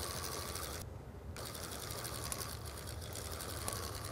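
Fixed-spool fishing reel on a spod rod being wound in fast, a rapid whirring tick of the rotor and gears, with a short break about a second in.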